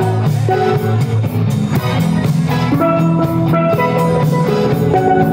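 Steelpan (steel drum) played with sticks: a quick melody of ringing notes over a bass and drum backing.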